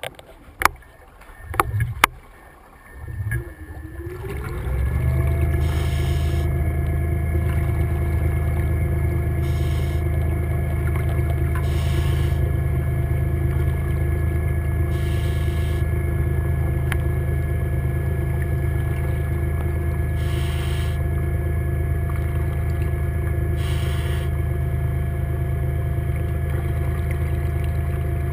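Seacraft underwater scooter (diver propulsion vehicle) motor spinning up with a rising whine about four seconds in, then running steadily underwater with a low hum and a steady whine. Short bursts of noise come every few seconds over it, and a few clicks and knocks come before the motor starts.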